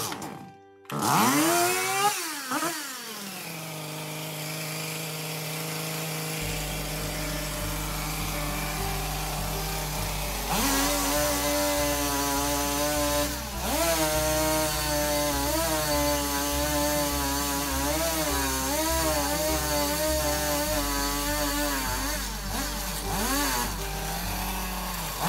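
Gas chainsaw starting with a pull about a second in and revving briefly, then idling steadily. From about ten seconds in it runs at high speed, its pitch dipping and rising as the throttle and load change, as in cutting timber.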